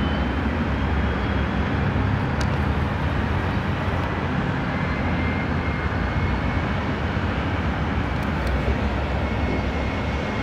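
Steady low rumble of city background noise, with faint sharp ticks about two seconds in and again near the end.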